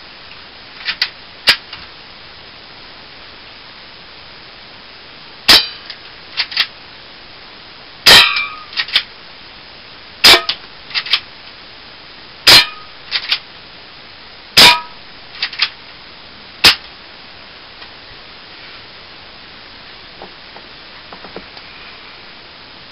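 HFC HA118 BB gun firing seven sharp shots, mostly about two seconds apart. Each shot has a couple of fainter clicks close by. The shooting stops after about seventeen seconds, leaving only a few faint clicks.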